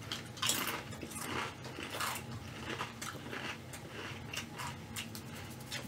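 Someone biting and chewing ridged potato chips (Ruffles Flamin' Hot BBQ): a run of irregular crunches, strongest in the first couple of seconds.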